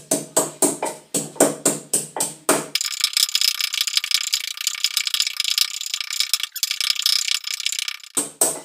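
Wooden pestle pounding garlic, ginger and salt in a wooden mortar, about three strokes a second. It then changes to a rapid rasping grind for several seconds, and two last strikes come near the end.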